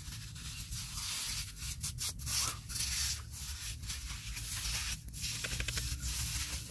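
Hands scraping and digging through wet sand: a run of rough rubbing scrapes with a few sharper scratches.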